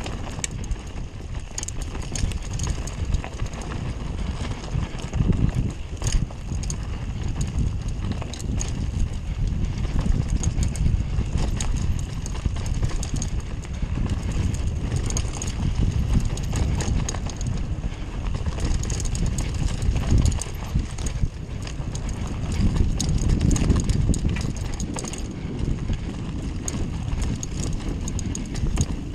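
Mountain bike running fast downhill over a bumpy dirt trail: a steady low rumble of tyres and air on the camera, with a dense clatter of clicks and knocks from the bike rattling over the ground.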